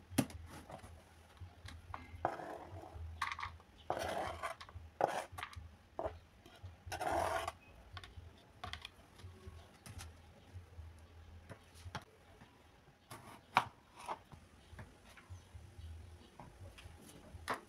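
Kitchen knife scraping chopped red onion across a plastic chopping board and into a bowl: a run of short scrapes in the first half, then scattered light clicks and taps.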